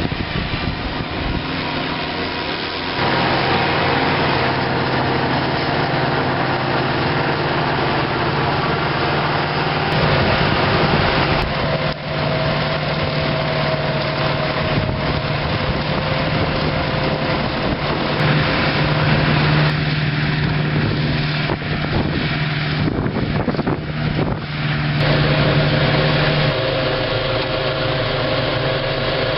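Engines of maize silage harvesting machinery, a forage harvester and tractors, running steadily under work. The engine note changes abruptly several times.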